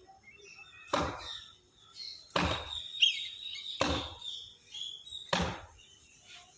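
Axe chopping into a tree's wood: four heavy strokes about a second and a half apart, with birds chirping faintly behind.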